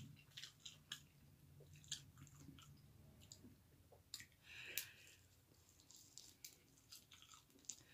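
Close-up chewing of spicy chicken wings: faint, wet mouth clicks and smacks throughout, with a brief breathy hiss about halfway.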